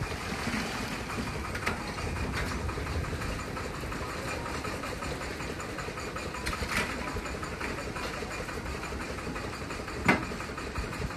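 Walking tractor engine running steadily, driving a rope hoist that lifts buckets of concrete. A few light knocks come over it, and a sharp knock near the end, as a shovel strikes the buckets.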